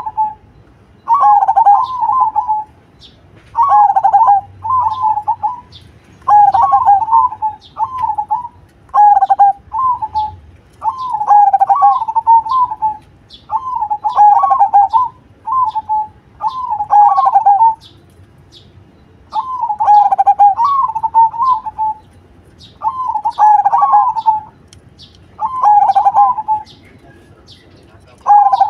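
Zebra dove (perkutut) singing: bouts of quick, rolling, warbled coos about a second long, repeated every second or two, with a brief pause about two-thirds of the way through. Faint high chirps can be heard underneath.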